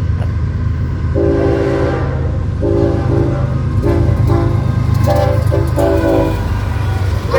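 Norfolk Southern locomotive's air horn sounding a chord of several notes, over the steady low rumble of the passing train. About a second in it gives one long blast, then a quick string of short blasts, as the horn is blown for a grade crossing.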